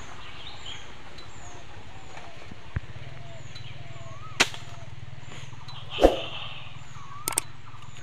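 Slingshot shot at a bird in a tree: a sharp crack about halfway through, then a heavier thud about a second and a half later. A bird repeats a short, high, falling chirp every half second or so, with other bird calls.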